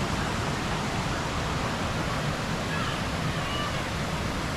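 Waterfall rushing over rocks: a steady, even roar of falling water.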